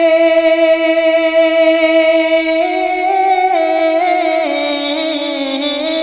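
Male voice singing an Urdu manqabat, drawing one syllable out into a long held note. The note holds steady for about the first half, rises, then comes down in ornamented steps.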